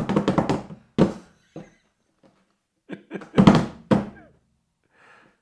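A series of sharp thuds and knocks: a quick run of them at the start, single knocks about one and one and a half seconds in, and another cluster about three to four seconds in.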